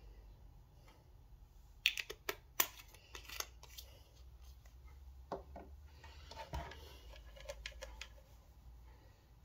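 Sharp plastic clicks and taps from small glitter vials being handled and shaken over a metal muffin tin: a quick run of them about two seconds in, and another scattered cluster toward the end.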